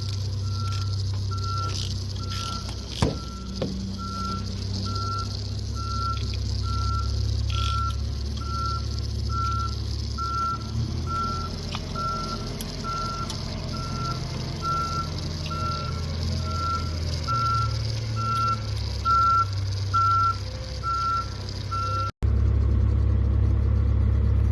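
Volvo 210 excavator's diesel engine running steadily, with a high electronic warning beep repeating about one and a half times a second over it. The beeping cuts off abruptly near the end while the engine keeps running.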